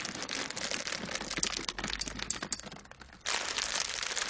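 Chocolate chips tipped from crinkly plastic packets into a bowl of cookie dough: a dense crinkle and rattle of small clicks. It dies down just before three seconds in and starts again a moment later.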